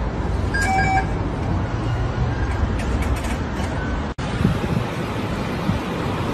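Steady low rumbling noise, with a short electronic-sounding beep about half a second in. The sound breaks off abruptly about four seconds in and a similar steady rumble resumes.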